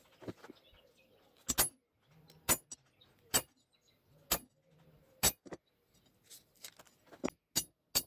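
Hammer striking a centre punch on a metal strip laid on a length of railway rail used as an anvil, marking hole centres through a paper template: sharp metallic taps about once a second, quickening to about three a second near the end.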